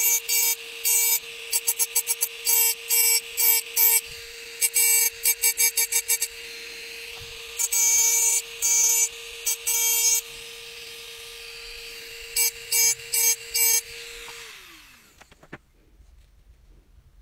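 A small rotary engraving tool whines steadily while its burr grinds into glass in quick, repeated strokes, giving a scratchy hiss that comes and goes. Near the end the motor is switched off and winds down with a falling whine, followed by a single click.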